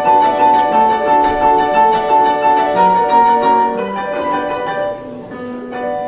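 Background music: a melody of struck, ringing notes over held chords, growing quieter over the last second and a half.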